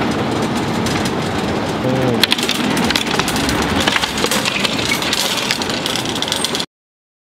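A metal shopping cart rattling and clattering continuously as it rides a store's cart escalator and is rolled off onto the floor. The sound cuts off abruptly near the end.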